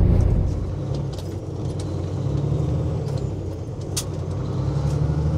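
Peterbilt semi-truck's diesel engine running with a low steady drone, heard from inside the cab. The engine note dips about half a second in and slowly builds again, with a few light clicks and rattles on top.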